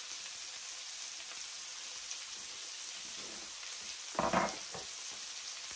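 Filet mignon steaks frying in butter in a cast iron skillet: a steady sizzle. A brief louder sound comes just after four seconds in.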